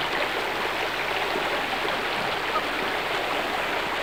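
Shallow stream running over stones: a steady rush of rippling water.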